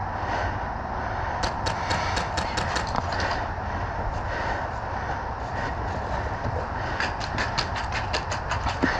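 Two rapid bursts of airsoft gunfire, sharp evenly spaced cracks at about seven shots a second, the first a second and a half in and the second starting about seven seconds in, over a steady hiss of wind and movement.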